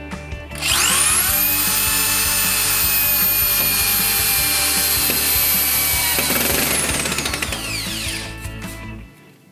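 ZUBR corded drill-driver running with no load: the motor spins up with a rising whine about half a second in, runs steadily for several seconds, then winds down with a falling whine after the trigger is released. Background music plays throughout.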